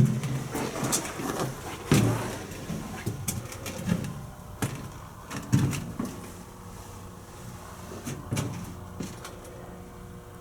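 Footsteps and irregular knocks and thumps while walking through the cramped engine room of an unpowered locomotive, over a faint steady hum.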